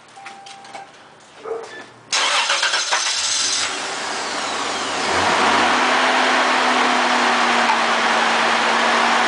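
1999 Toyota Tacoma engine being started: a quiet pause with small clicks, then the starter cranks about two seconds in and the engine catches within a second and a half and settles into a steady fast idle. The engine has Sea Foam added to its oil and fuel to treat a knock.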